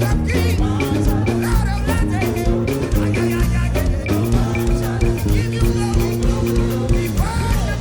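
Live upbeat praise dance music: a band with bass, guitar and drums plays a steady beat while singers' voices weave over it.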